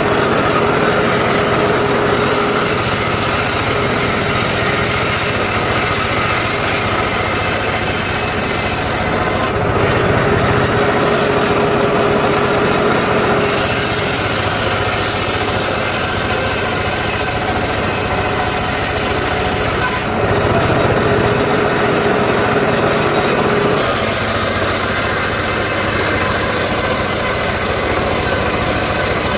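Engine-driven home-built circular saw running steadily while sawing sengon wood. Its sound changes twice, about ten and twenty seconds in, for a few seconds each time.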